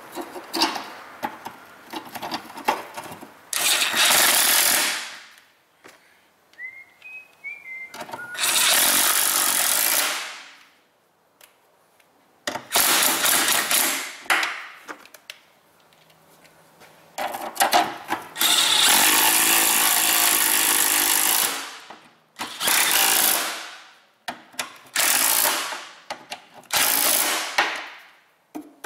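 Cordless impact wrench hammering in repeated bursts of one to four seconds, about seven in all, running in the exhaust bolts of a replacement catalytic converter. Short metal clicks and knocks come between the bursts.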